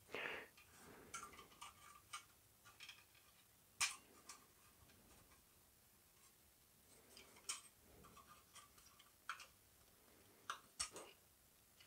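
Faint, sparse clicks and light handling noise from thin sheet-metal kit parts being pressed and clipped together, with one sharper click about four seconds in.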